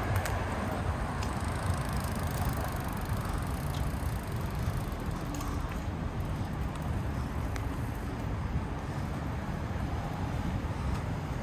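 City street ambience: a steady low rumble of traffic noise, with a few faint clicks scattered through it.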